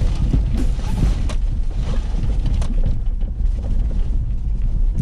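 Inside a 4x4's cab on a rough snowy trail: a steady low rumble of engine and tyres, with knocks and rattles from the body and suspension every second or so.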